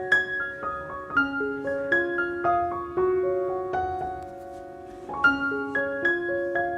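Gentle solo piano background music: a slow melody over broken chords, with a held chord that fades out midway before the notes pick up again.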